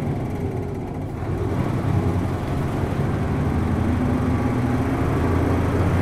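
Hino M10U inline-six diesel of a 1994 Blue Ribbon bus with a 5-speed manual gearbox, heard from inside the passenger cabin while driving. The engine note falls away briefly about a second in, then picks up again and rises in pitch as the bus accelerates.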